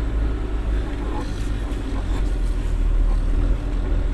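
Truck's diesel engine running steadily, heard from inside the cab as a low rumble, with a few faint clicks over it.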